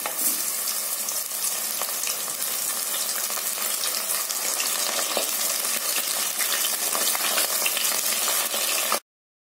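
Breadcrumb-coated onion rings deep-frying in hot oil: a steady sizzle full of fine crackling. It cuts off suddenly near the end.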